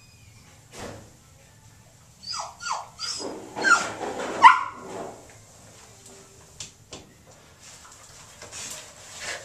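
A puppy gives two short falling whines about two seconds in, then a quick run of sharp yelping barks, loudest around four seconds in.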